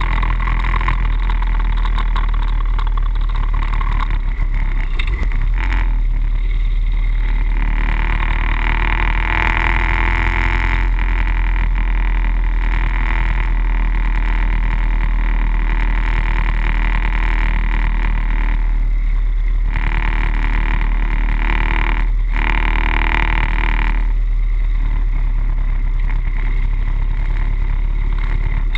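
Harley-Davidson Wide Glide's V-twin engine running at road speed with wind rushing over the bike-mounted microphone, a steady heavy rumble that briefly drops a few times in the second half.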